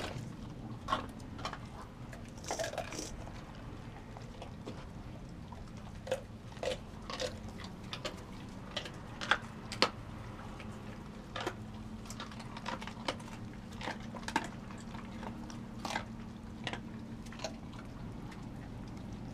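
Dogs chewing and crunching food from a stainless steel bowl: irregular crunches and clicks, some sharper than others, over a steady low hum.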